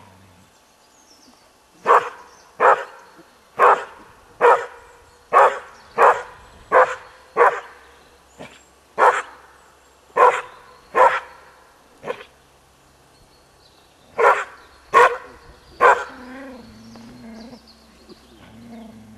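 Collie barking in a run of about fifteen sharp single barks, less than a second apart, with a short pause partway through. Near the end the barking stops and a low, drawn-out sound follows.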